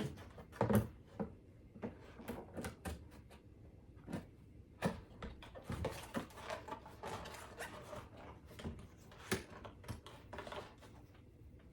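Cardboard box and packing being handled and rummaged through: irregular knocks, taps and rustling, with a longer stretch of rustling around the middle.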